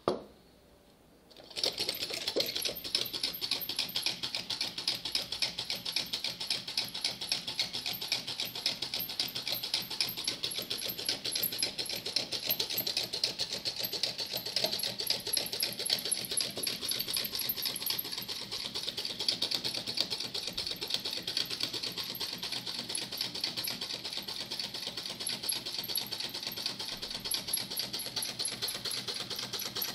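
Homemade tin-can Stirling engine running on a tealight's heat, its flywheel spinning and its moving parts keeping up a rapid, steady mechanical clatter. A sharp knock right at the start, then the clatter sets in about a second and a half in.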